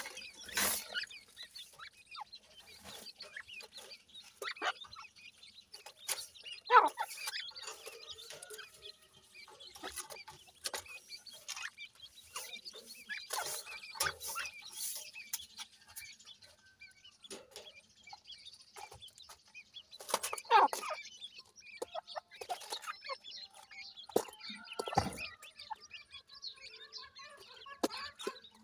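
Grey francolin chicks peeping and an adult francolin clucking as they forage together on the ground: a scattered run of short calls, a few of them louder than the rest.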